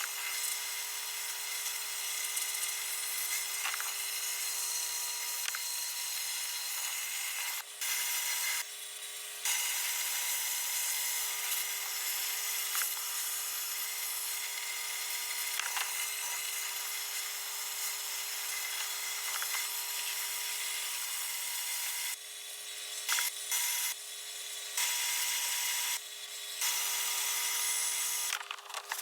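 Vapor blast cabinet's nozzle spraying a slurry of fine glass bead and water with compressed air onto an aluminum air-cooled VW cylinder head. It makes a steady hiss that falls back briefly a few times, mostly in the second half, as the spray is let up.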